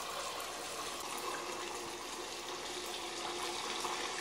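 Kitchen tap running a thin stream of water into a steel pot in a stainless-steel sink, filling it: a steady splashing hiss.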